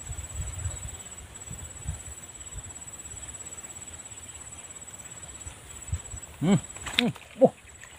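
An insect trilling steadily: a high-pitched, fast-pulsing buzz that carries on with one short break. Near the end a few short vocal sounds break in.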